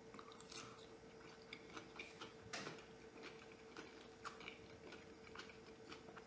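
Faint chewing of a sushi roll: soft, irregular mouth clicks and smacks, over a faint steady hum.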